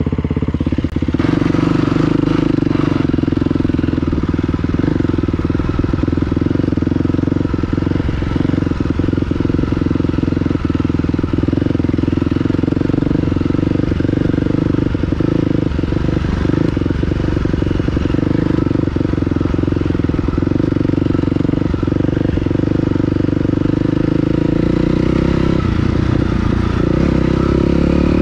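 Dirt bike engine running at a fairly steady pitch while being ridden, with scattered light knocks and rattles. The engine pitch rises a little near the end.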